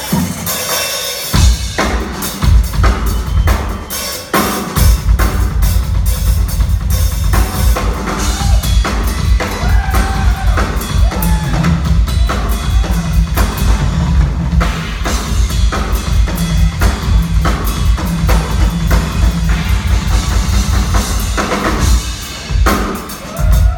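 Instrumental jazz-rock band playing live, driven by a busy drum kit with pounding bass drum and sharp snare hits and rimshots, with sustained melodic notes over it.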